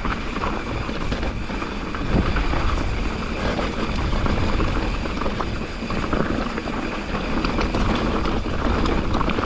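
Mountain bike rolling over a loose, rocky dirt trail: tyres crunching over stones and the bike rattling, over a steady low rumble.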